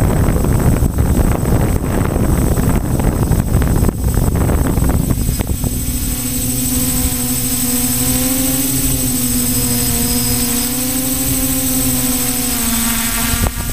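A loud rushing noise for the first five seconds or so, then a quadcopter's electric motors and propellers humming at a steady pitch that wavers slightly.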